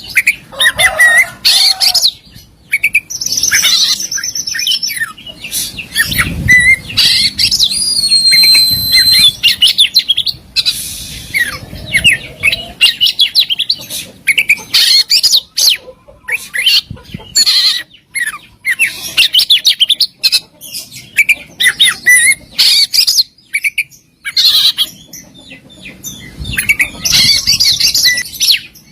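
Oriental magpie-robin (kacer) singing a loud, continuous, varied song of rapid chirps, trills and clear whistles, broken only by brief pauses: a 'full isian' song packed with mimicked phrases and fast 'tembakan' bursts.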